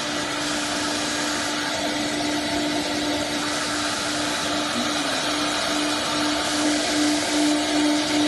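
CNC router running: a steady whine from the spindle over a broad rushing noise, the whine pulsing rhythmically from about halfway through.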